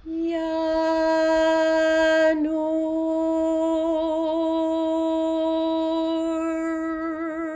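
A single voice chanting the Sufi divine name "Ya Nur" on one long held note, with a short break about two seconds in and a wavering vibrato that grows toward the end.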